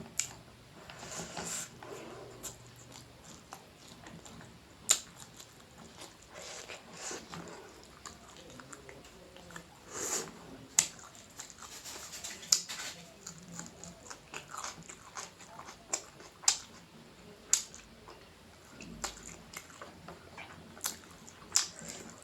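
Close-miked eating: wet chewing and lip-smacking of rice and noodles, with a dozen or so sharp mouth clicks and smacks spread irregularly through it.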